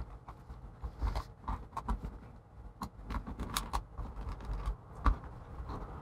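Irregular small clicks, ticks and creaks of the plastic case of an aftermarket MagSafe 1 MacBook charger being pried apart by hand at its glued seam, with a louder click about five seconds in.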